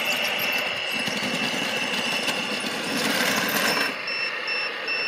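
Radio-controlled Liebherr crawler loader running, a dense mechanical rattle from its drive and tracks. A steady high tone turns into regular electronic beeping about four seconds in.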